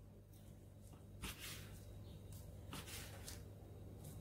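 Faint strokes of a kitchen knife slicing through a sushi roll onto a plastic cutting board, three short cuts over a low steady hum.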